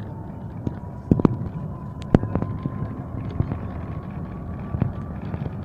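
Embraer 145 regional jet's engines heard from inside the cabin: a steady low rumble with a faint high whine that rises slightly, and scattered sharp knocks and rattles.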